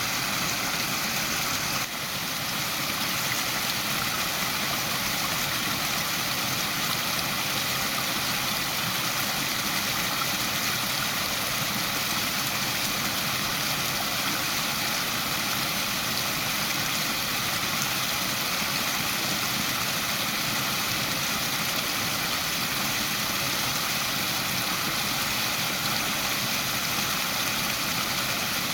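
Waterfall rushing steadily: an even, unbroken hiss of falling water, strongest in the upper range.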